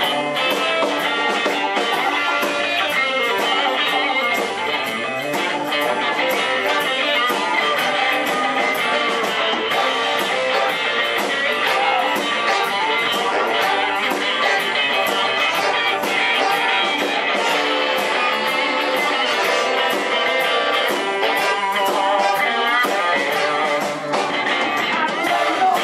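Live blues band playing: electric guitar, electric bass and a drum kit keeping a steady beat.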